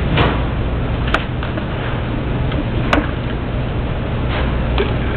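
Steady low rumbling noise, with two short sharp clicks about a second and three seconds in.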